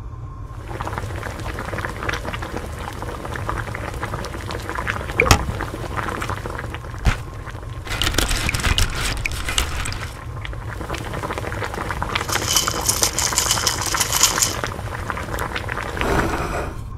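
Liquid bubbling at a boil with scattered crackles, broken by two sharp knocks about five and seven seconds in, then two louder stretches of liquid pouring and splashing.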